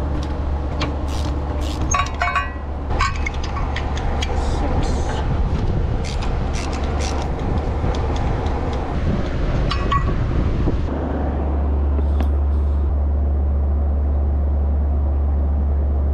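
Scattered sharp clicks and clinks of hand tools and engine parts being handled during spark plug work, over a steady low rumble; the clicks stop about eleven seconds in and the rumble carries on alone.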